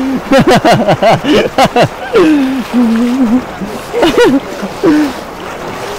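Several people's voices calling out and talking loudly, with one long, wavering call held for over a second about two seconds in, over a steady rushing noise of flowing floodwater.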